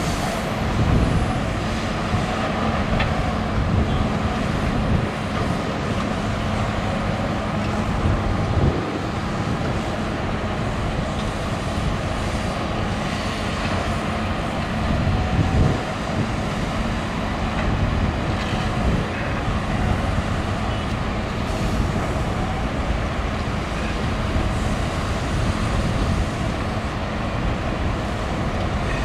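Diesel engines of several excavators and dump trucks running together in a steady din, with a constant low hum.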